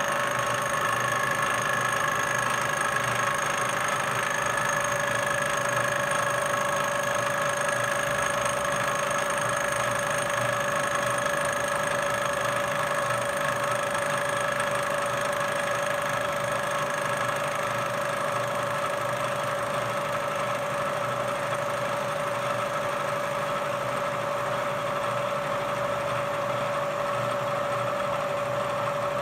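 Bridgeport milling machine running, its end mill cutting the side of an aluminum piston as the table feeds the work past it, a steady hum with a constant whine.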